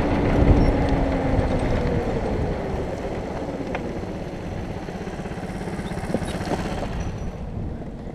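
Racing kart's two-stroke engine running slowly with a rapid low pulsing as the kart rolls along at low speed, slowly getting quieter toward the end.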